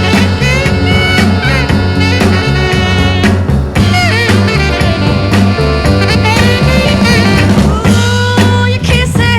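Vintage rhythm-and-blues record playing, an instrumental stretch with saxophone and brass over a bass line and drums.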